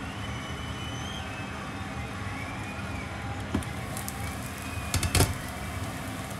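Food frying in a pan with a steady sizzle. There is a sharp knock about three and a half seconds in and a quick cluster of louder knocks about five seconds in.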